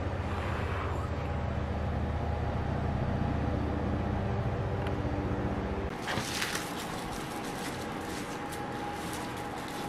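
A steady low rumble for about six seconds that stops abruptly. It is followed by crinkling and rustling of paper and plastic packaging as sticker packs are handled for mailing, dense at first and then in scattered bits.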